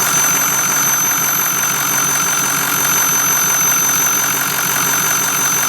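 2006 Ford F-350's 6.0 L Power Stroke V8 turbodiesel running with a steady, high-pitched whistle from under the hood, very loud and obnoxious. The owner has not found its cause.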